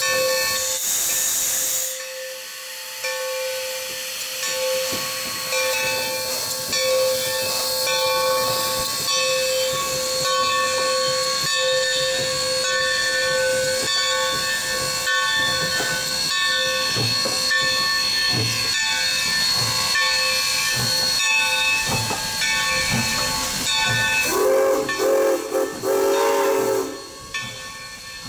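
Steam locomotive standing with steam hissing steadily, over a held whine of several steady tones. Near the end its steam whistle blows for about three seconds.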